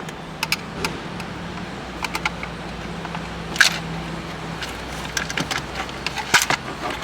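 Small screwdriver and tiny Phillips screws clicking and tapping against plastic interior trim, irregular light clicks with a couple of sharper ones, over a steady low hum.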